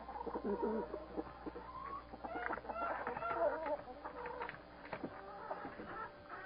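A flock of hens clucking and calling over one another in short, overlapping calls, busiest in the first few seconds.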